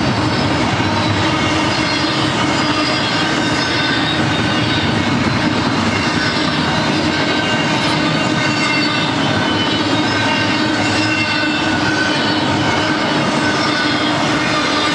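Freight train of double-stack container well cars and trailer-carrying flatcars rolling past at steady speed, with a continuous rumble of steel wheels on rail. Thin high-pitched squealing tones from the wheels come and go over the rumble.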